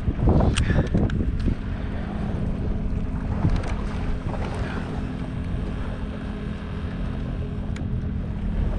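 Wind buffeting the microphone over a steady low hum from the boat's bow-mounted electric trolling motor.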